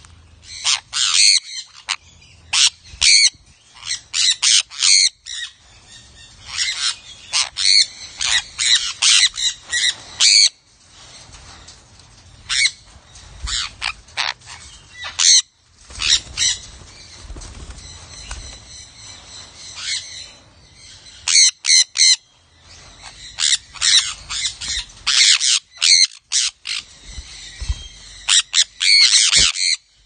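A flock of sun conures screeching: many short, high-pitched calls in quick runs, with a few brief lulls.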